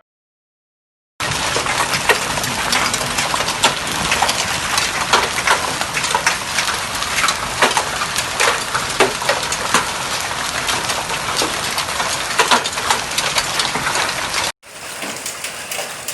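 Hail and rain falling hard: a dense hiss filled with many sharp ticks of hailstones striking. It starts abruptly about a second in, and near the end cuts to a quieter stretch of rain.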